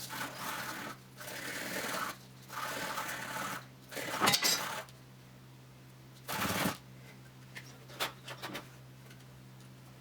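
Sandpaper rubbed back and forth over the cut end of a hardline water-cooling tube: four sanding strokes of about a second each, then a short knock about six and a half seconds in and a few light clicks as the tube is handled.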